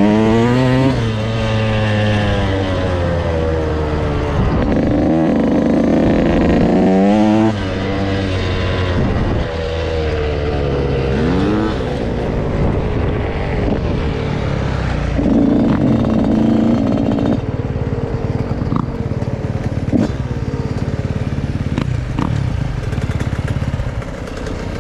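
Dirt bike engine heard from the rider's seat, revving up and dropping back several times as the bike accelerates and shifts over a dirt track, with wind noise. Near the end the engine goes lower and quieter as the bike slows.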